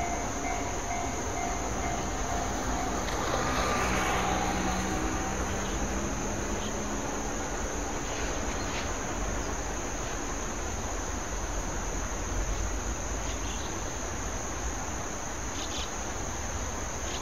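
Insects chirring in a steady high-pitched trill. Over the first few seconds it is mixed with the low hum of an electric train fading away.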